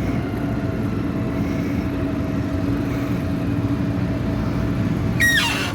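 Combine harvester's diesel engine running steadily as the machine drives past close by. About five seconds in there is a short, high squeal that falls in pitch.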